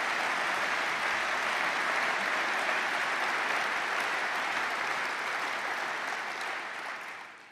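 A large seated audience applauding, a dense steady clapping that dies away over the last second or so.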